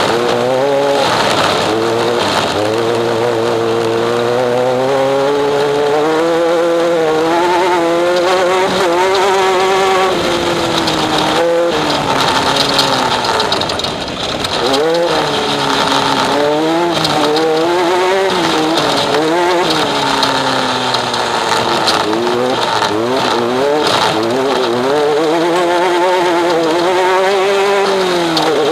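Off-road race vehicle's engine under hard throttle, its revs climbing and falling over and over as it drives over rough ground, with a brief lift about 14 seconds in.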